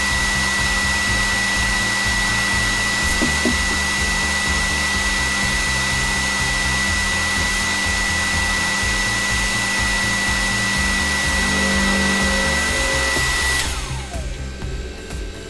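Milling spindle of a Wabeco F1200 mill running steadily with a high whine while the CNC-fed cutter mills a slot. Near the end the whine glides down and the noise falls away as the spindle runs down.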